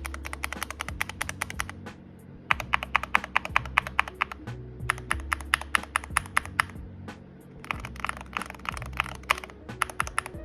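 Mechanical keyboard being typed on in a keycap sound test: fast runs of key clacks in three stretches with short pauses between them, comparing double-shot, dye-sub and thermal-sub keycaps. Background music plays underneath.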